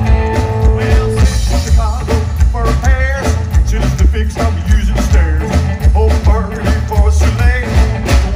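Live rockabilly trio playing an instrumental break: electric guitar lead with bent, wavering notes over a walking upright bass and drums.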